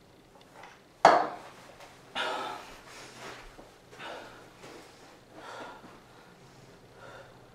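A glass set down with a sharp clunk about a second in, then several heavy breaths about a second apart: panting between sets of pull-ups.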